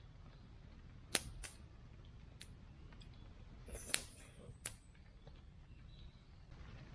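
A few sharp, brief clicks or snaps, five in all, the loudest about a second in and about four seconds in, over a low steady background.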